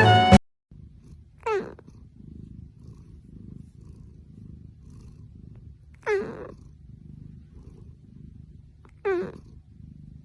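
A cat purring steadily, with three short meows that fall in pitch, about a second and a half, six and nine seconds in.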